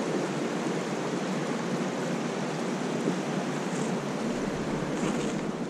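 The Sense river rushing steadily, a constant wash of flowing water.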